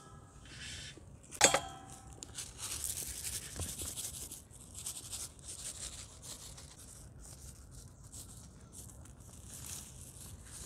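A single ringing clink of glass or metal about a second and a half in, then a light, scratchy rustle of seeds being shaken from a small glass jar onto egg-washed dough, coming and going for several seconds.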